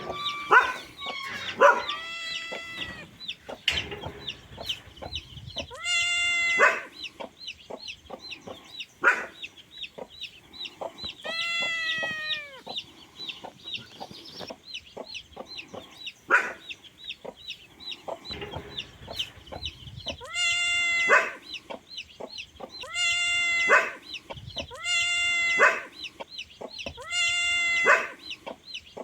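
A chicken calling in drawn-out, pitched squawks, about eight times, with several in quick succession in the second half. Under them runs a fast, steady high chirping, along with scattered short clicks.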